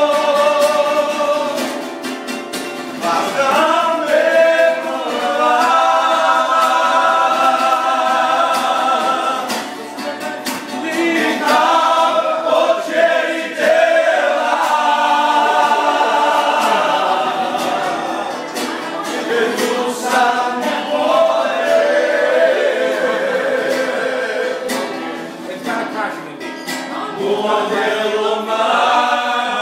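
A group of men singing a worship song together, with an acoustic guitar strummed along. The song goes in long phrases, with a short dip in level between them every eight seconds or so.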